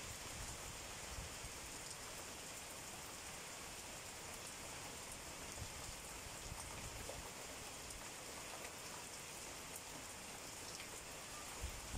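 Steady rain falling on banana leaves and open fields, an even hiss of many drops. Brief low gusts of wind buffet about half a second in and again just before the end.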